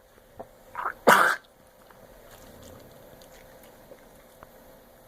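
A dog with kennel cough gives one short, harsh cough about a second in, with a smaller catch just before it.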